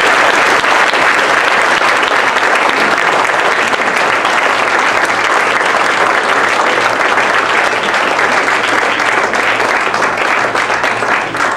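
Audience applauding steadily, thinning to a few scattered claps near the end.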